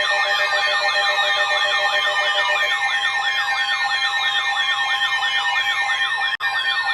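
Electronic emergency alert tones from a weather radio and an Emergency Alert System relay: a fast warbling, siren-like tone rising and falling a few times a second, layered over steady beeping tones. The sound briefly cuts out about six seconds in.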